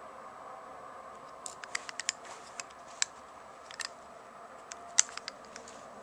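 Irregular light clicks and taps of a metal Zippo lighter being handled and turned in the fingers against a plastic magnifier, with a sharper click about five seconds in.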